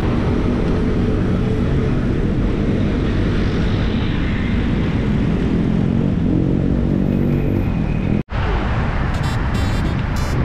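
Wind rushing over a bicycle-mounted camera's microphone and road traffic while cycling, with the engine rumble of a bus passing close alongside at the start and of another vehicle later on. The sound drops out for an instant near the end at an edit, then the traffic and wind carry on.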